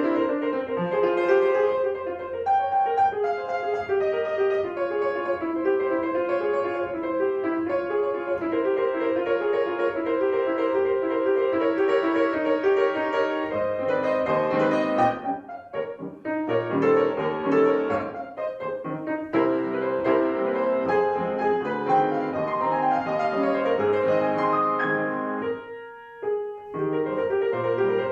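Piano being played, a steady flow of notes that breaks off briefly about midway and again near the end before carrying on.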